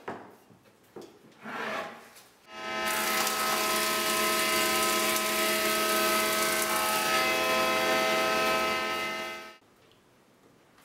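Thickness planer cutting a board carried on an angled sled: a loud, steady machining whine with several held tones, starting about two and a half seconds in and stopping abruptly near the end. Before it, a few light knocks of wood being set in place.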